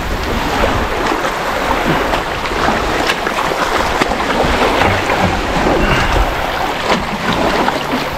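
Water sloshing and splashing, with a few brief sharper splashes, over wind rumbling on the microphone.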